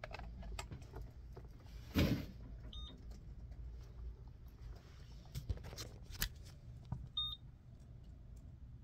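An IDEAL LinkMaster PRO cable tester beeps briefly twice, a few seconds apart, while it tests a freshly terminated shielded Cat 6 cable. Around the beeps are clicks and knocks of the cable and RJ45 plug being handled and plugged in, with one louder thump about two seconds in.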